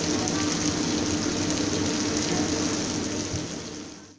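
Onions, tomatoes and garlic-ginger paste sizzling in hot oil in a frying pan, a steady hiss that fades away near the end.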